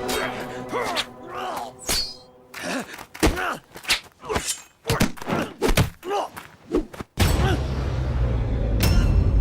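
Film fight sound effects: a quick series of blows, thuds and knocks mixed with men's short grunts and groans of effort. About seven seconds in, the blows give way to a sudden loud, steady low rumble.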